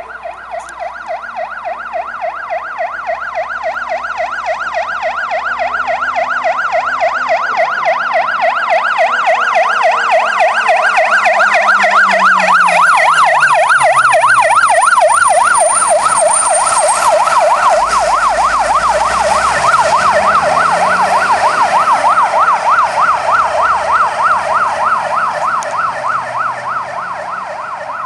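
Fire engine's siren sounding in a rapid up-and-down warble as the STAR fire truck approaches, passes and drives away: it grows steadily louder, is loudest about halfway through, then fades. Around the pass the truck's engine is heard dropping in pitch.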